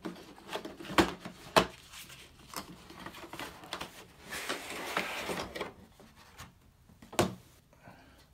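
A cardboard box being handled and opened, with its contents slid out. There are two sharp knocks about a second in, a sliding rub of cardboard around the middle, and another knock near the end.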